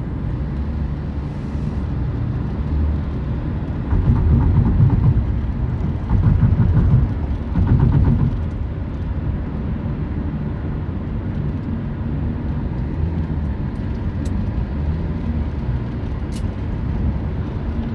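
Steady low rumble of a vehicle in motion, swelling louder briefly three times between about four and eight seconds in.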